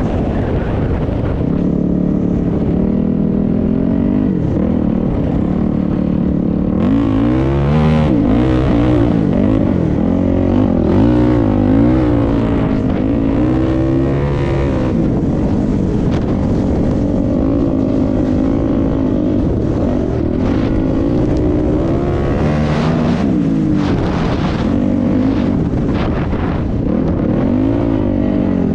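A motor vehicle's engine running on the move. Its pitch is steady at first, then from about seven seconds in it climbs and drops again and again as the vehicle speeds up and eases off.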